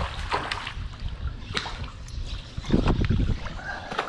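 Water splashing and trickling beside a small fishing boat, with scattered knocks and clicks of handling. The loudest part is a cluster of thuds about three seconds in.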